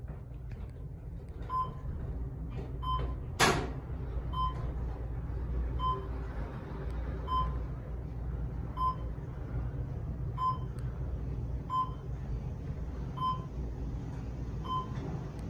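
Schindler 500 traction elevator car travelling up, with a steady low ride hum and a short electronic beep about every one and a half seconds, the floor-passing tone as each floor goes by. One sharp clack about three and a half seconds in.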